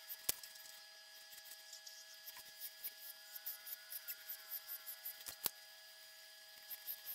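Graphite pencil scratching on drawing paper in short quick strokes, several a second with brief pauses, over a faint steady hum. Two sharp clicks, one just after the start and one about five seconds in.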